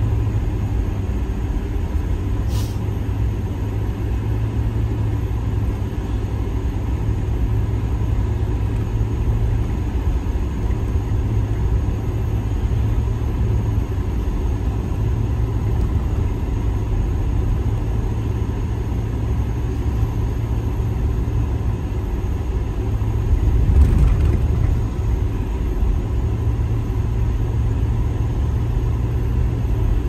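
Steady low rumble of a car's engine and tyres on a snow-covered road, heard from inside the cabin, swelling briefly louder about twenty-four seconds in.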